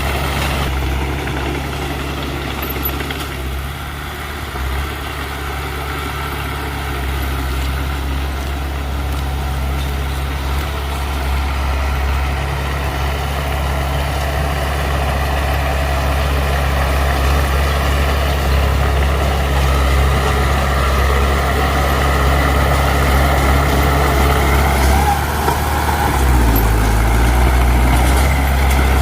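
Heavy diesel engine of earthmoving machinery running steadily with a strong low drone. Its low note shifts near the end.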